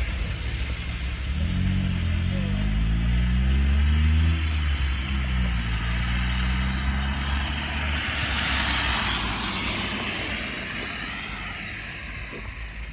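A car's engine rising in pitch as it accelerates past, loudest about four seconds in, then holding steady. A rush of tyres on the road follows, fading away toward the end.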